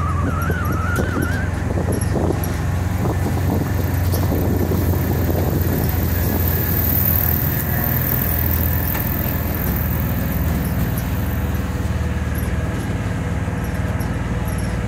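Volkswagen Kombi van driving with its engine humming steadily, over scattered rattles and knocks from the loose bodywork: the body noise the owner is trying to trace. A brief wavering squeak sounds near the start.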